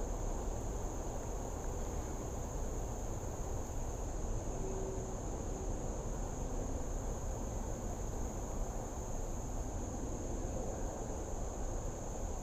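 A steady chorus of insects: one constant high-pitched drone, over a low, even background rumble.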